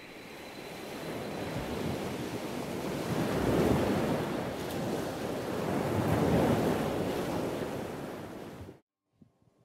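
Ocean surf: a rushing wash of waves that swells twice, a little over two seconds apart, then cuts off suddenly near the end.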